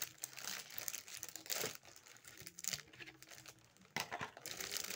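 Plastic wrapping of a large chocolate Easter egg crinkling in irregular bursts as it is handled.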